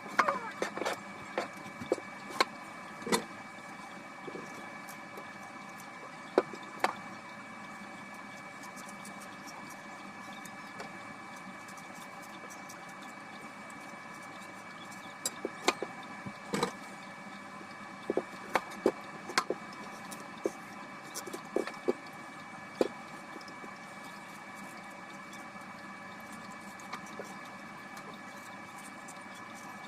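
A steady machine hum with several fixed tones, with scattered sharp clicks and knocks, most of them in the first few seconds and again between about 15 and 23 seconds in.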